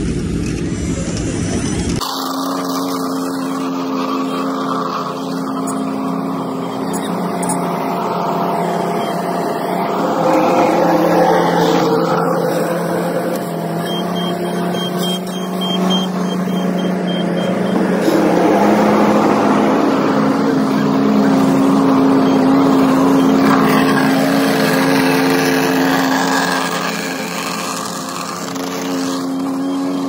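Heavy diesel asphalt-paving machinery running steadily, a continuous engine drone with a steady low pitch; the sound changes abruptly about two seconds in and then holds with small swells.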